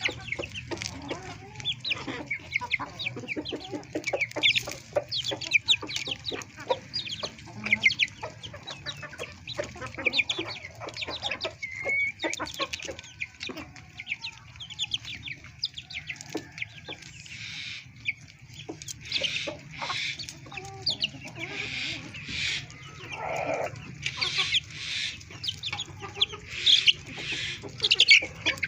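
Chickens clucking and calling, with louder calls in the second half. Many quick short taps are heard through the first half, and a faint low hum runs underneath.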